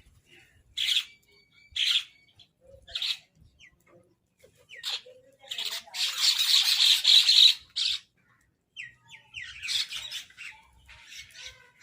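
Crows cawing: a run of short, harsh caws, then a dense burst of overlapping calls about six seconds in, followed by scattered calls.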